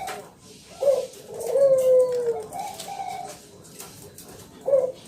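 Spotted dove (tekukur) cooing: a short note about a second in, then a long drawn-out coo that falls slightly in pitch and a higher note after it, with the next call starting near the end.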